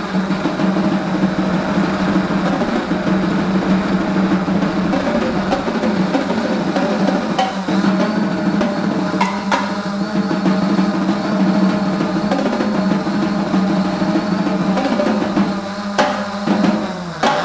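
Freex Skyview quadcopter's electric motors and propellers buzzing, heard from the camera on the craft, with the pitch wavering up and down as it manoeuvres. A few brief clicks stand out over the buzz.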